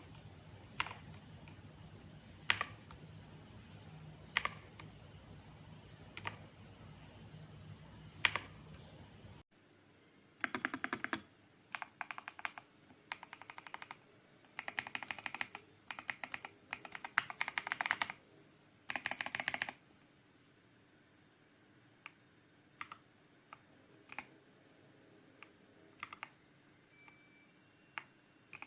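Keys of a ZIFRIEND ZT104 mechanical keyboard with silent switches being pressed: single keystrokes about two seconds apart over a low hum, then after a cut, bursts of fast typing for about ten seconds, then scattered single key presses.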